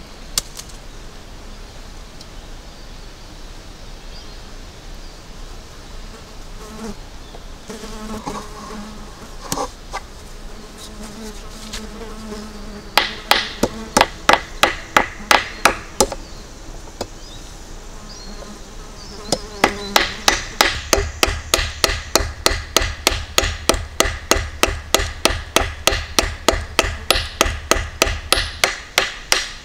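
Hammer peening the edge of a scythe blade on a small peening anvil, cold-hammering the edge thin to sharpen it: sharp metallic strikes, first a short run, then after a pause a steady run of about three strikes a second. Insects buzz before the hammering starts.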